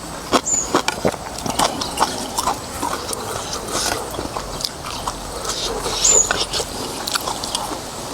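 Close-up eating of noodles with beef soup: chewing with irregular wet clicks and smacks.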